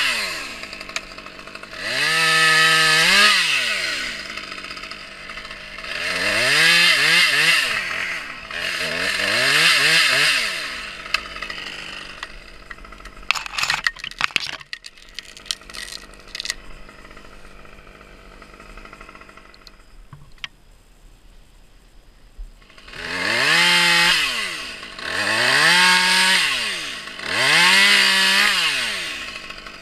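Two-stroke top-handle chainsaw revving in repeated bursts every two to three seconds, each rising in pitch, holding briefly and dropping back to idle. In the middle it idles more quietly for about ten seconds, with a few sharp clicks, before the revving starts again.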